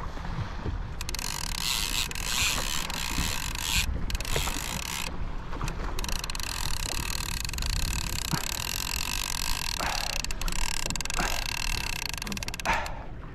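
Fishing reel whirring steadily, a geared mechanical whine with brief pauses a few seconds in.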